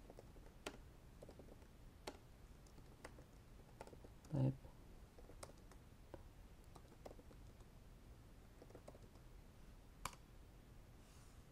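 Faint, sparse computer keyboard key clicks from slow typing of a terminal command. A short low murmur of voice comes about four seconds in.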